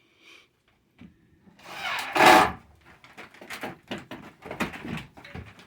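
Wood scraping on wood about two seconds in, then a run of light knocks and clatters of boards.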